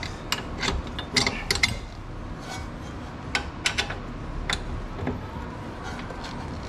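Irregular metallic clicks and clinks of tools and suspension parts being handled as a coilover strut is fitted into a car's front shock tower, a few of the clinks ringing briefly.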